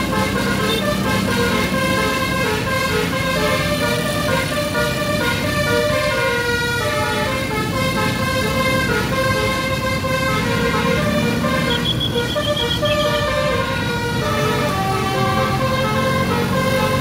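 A tour bus's basuri (telolet) musical horn playing a continuous melody of stepping notes, over the rumble of road traffic.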